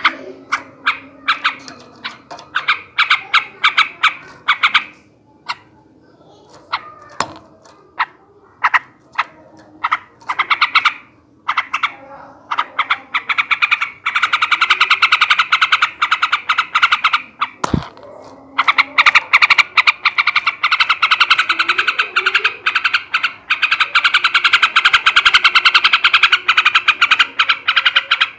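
Male yellow-vented bulbul (trucukan) calling: scattered sharp notes at first, then building into long, rapid chattering trills.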